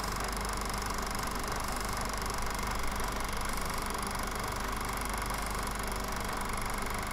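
Film projector running steadily: an even mechanical whirr and clatter with a constant hum beneath it.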